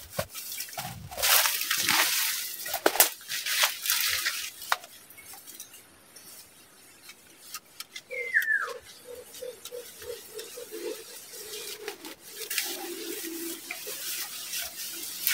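Leaves and twigs rustling and crackling for the first few seconds. About eight seconds in, a short falling squeal, then a white-eared brown dove (alimokon) gives a run of low, quick hooting notes, about four a second, for a few seconds.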